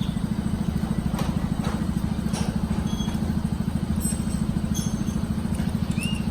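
An engine idling steadily with an even, fast pulse, with a few light clicks and short squeaks of hand tools on top.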